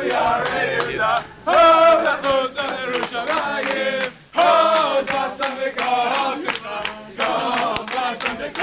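A group of men singing a Jewish wedding dance song together, loudly, in phrases with a short break about every three seconds.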